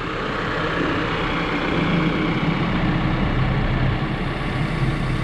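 Diesel engine of a Case 590 Super N loader backhoe idling steadily.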